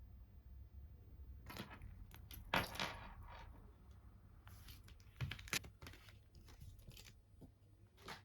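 Small items being handled: light rustling and clicks, loudest about two and a half seconds in, with another cluster about five seconds in and a sharp click near the end.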